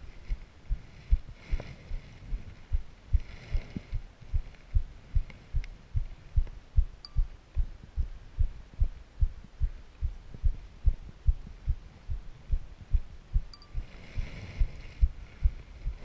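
Rhythmic low thumps, about two to three a second, from footsteps jolting the camera as the hiker walks the trail, with a few brief rushes of hiss from wind or brushing against the bushes.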